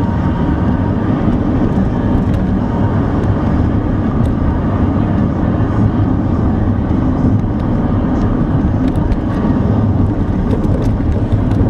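Car driving along a rough, narrow road: a steady low engine hum and tyre and road noise, with scattered light ticks and rattles.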